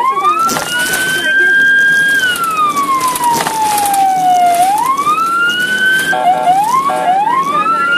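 Ambulance siren wailing in slow sweeps: it rises, holds high, then falls slowly and climbs again. Near the end it breaks into a couple of short, quick rising whoops.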